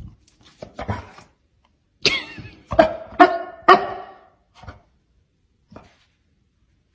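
A dog barking: a string of short barks, the loudest three close together around the middle, then a couple of fainter ones.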